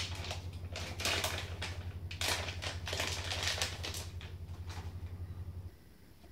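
Irregular clicks, taps and light rattles from small electronic parts being handled: a thin metal piece and an LCD module are turned over in the hands and one piece is set down on the table. A steady low hum runs underneath, and both stop abruptly near the end.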